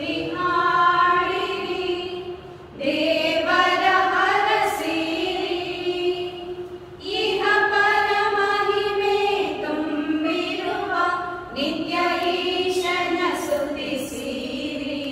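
A small group of women singing a prayer song together, unaccompanied, through a microphone, in long held phrases with short breaks between them about every four seconds.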